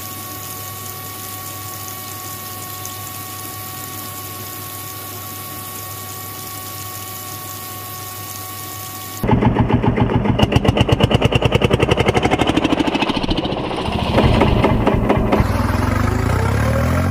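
A toy tractor's small electric water-pump motor runs with a steady hum and whine. About nine seconds in, a much louder chugging engine sound cuts in suddenly, pulsing about five times a second like a tractor engine, as the toy tractor drives off.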